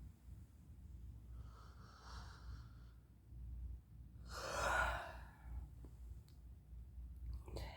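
A person yawning: a faint breath, then a louder breathy sigh out about four seconds in.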